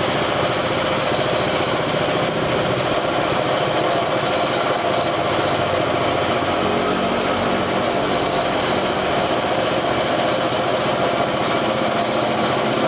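Gravity-feed air spray gun spraying paint in a steady, unbroken hiss of compressed air, with the motor of the air compressor feeding it running underneath.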